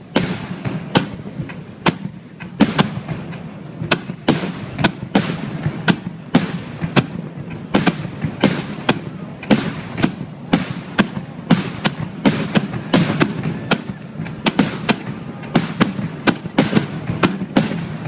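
Aerial firework shells bursting in a rapid barrage: sharp bangs about two a second, with a low rumble filling the gaps between them.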